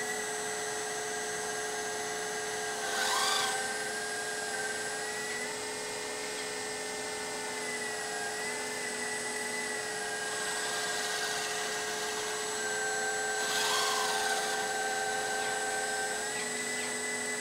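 Hydraulic pump of an RC model excavator running with a steady whine, its pitch stepping up and down a few times as the boom, arm and bucket are worked. Two short, louder hissing rushes come about three seconds in and about thirteen and a half seconds in.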